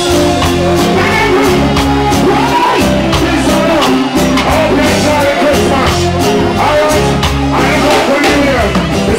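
Live reggae band playing through a concert PA, with drums, bass and keyboards, and a male vocalist singing over it into a microphone.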